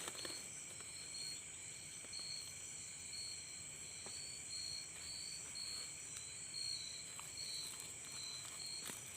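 Night insect chorus: a steady high shrill of many insects, with one high chirp pulsing about once a second.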